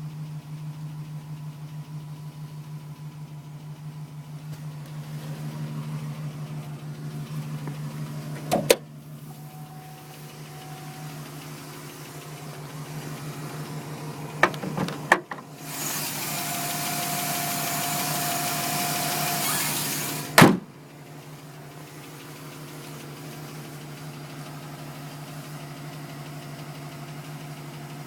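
GMC Sierra pickup engine idling steadily with a fast, even pulsing tick, the noise its owner wonders may be piston slap. A few sharp clicks break in, and for about five seconds in the middle a loud hiss covers the engine, ending in a loud thump.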